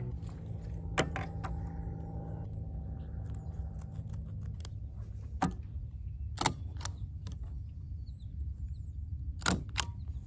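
Scattered sharp clicks and snaps, about ten of them with loud ones at about one, six and a half and nine and a half seconds in, from stapling and clipping fabric with a stapler and binder clips, over a steady low rumble. A lingering musical tone fades away during the first four seconds.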